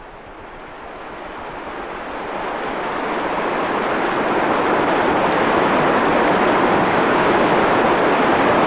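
Steady rushing noise in the open air, with no distinct events, growing gradually louder over the first five seconds or so and then holding steady.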